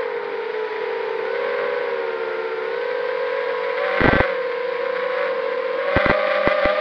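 ZMR250 FPV racing quadcopter's motors and three-blade propellers whining in flight, a steady buzzing tone that wavers a little in pitch with the throttle. Brief crackles cut in about four seconds in and several more around six seconds.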